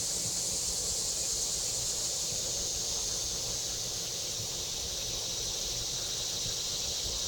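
A steady, high-pitched chorus of insects, with wind rumbling on the microphone and leaves rustling.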